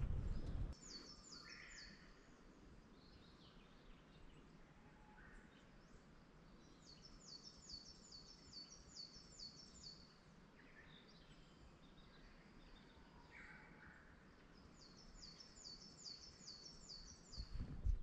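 A songbird singing a rapid run of high, repeated falling notes three times, the longest run in the middle, with a few fainter bird calls in between over quiet forest background. Footsteps on a wooden boardwalk stop within the first second and start again near the end.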